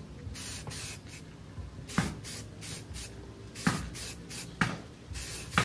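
Aerosol spray can hissing onto a steel billhook blade in a series of short bursts, about seven, several of them starting with a sharp click.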